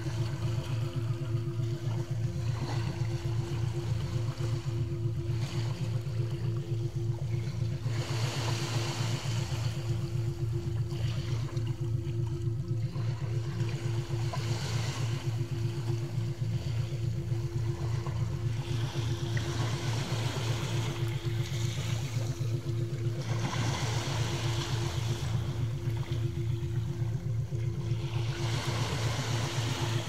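Small sea waves washing in among rocks on the shore, swelling every few seconds, over a steady low electronic tone from a 3.5 Hz meditation track that runs unbroken underneath.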